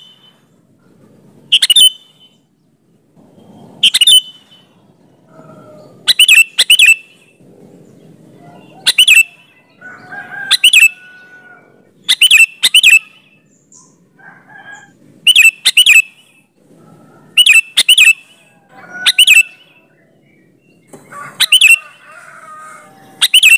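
Sooty-headed bulbul (kutilang) calling: short, sharp, loud notes every second or two, often in quick pairs, with fainter softer notes between them.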